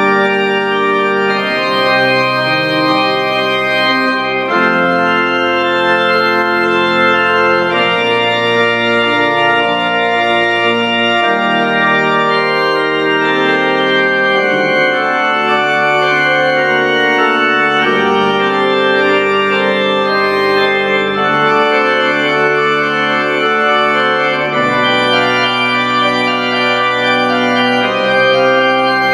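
Pipe organ playing slow, sustained chords over held pedal bass notes, the harmony changing every second or two.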